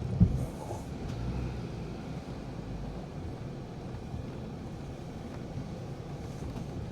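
Low rumble of a vehicle creeping along, heard from inside the cab, with a sharp thump just after the start.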